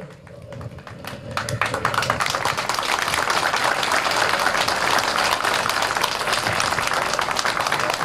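Crowd applauding: scattered clapping that swells into steady applause about two seconds in.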